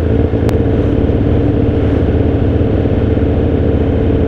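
Sport motorcycle engine idling steadily at a standstill, not revved.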